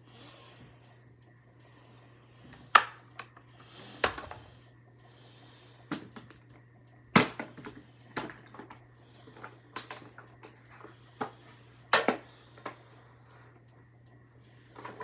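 Plastic makeup compacts and cases clicking and clacking as they are handled and set down: irregular sharp taps, a few of them much louder, over a steady low hum.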